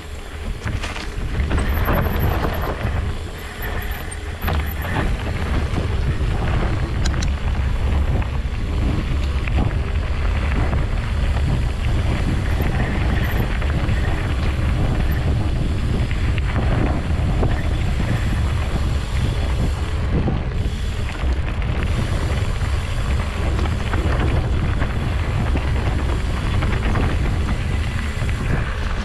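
Wind buffeting a camera microphone during an off-road ride: a continuous low rumble, with scattered knocks and rattles from the bumpy trail.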